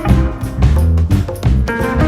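Background music: blues-style instrumental with guitar, bass and drums.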